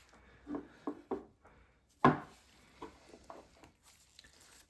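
Light clicks and taps of orthodontic pliers working a stainless steel wire as a bend is made in it: about half a dozen, the loudest about two seconds in.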